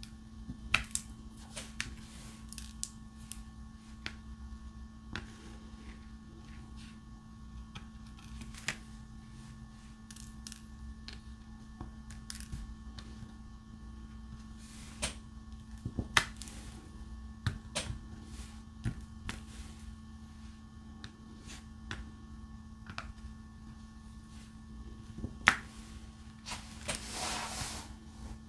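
Diamond painting drill pen tapping resin drills onto the canvas: scattered small sharp clicks, irregular and a second or more apart, over a steady low hum. Near the end a brief rushing noise lasts about a second and a half.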